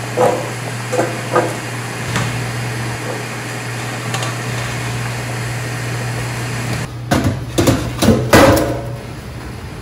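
Short knocks of a stainless steel mixing bowl and hotel pan as food is scraped from one into the other. About seven seconds in comes a burst of clanking stainless steel pans being handled, over a steady low hum.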